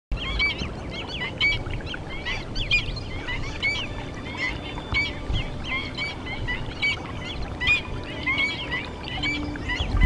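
A flock of birds calling in a busy chorus: many short, sharp calls several times a second, over a low background rumble.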